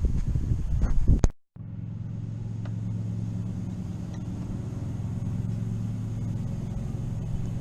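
A steady low mechanical hum with an even pitch, after about a second of rattling, clicking handling noise that cuts off abruptly.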